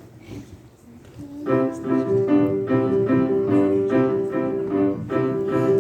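Piano playing the introduction to a gospel song: repeated chords struck about twice a second, starting about a second and a half in after a moment of quiet room noise.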